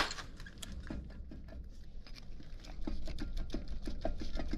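Light, irregular metallic clicks and knocks of hand work on the front axle's parts, sparse at first and growing quicker and louder from about three seconds in.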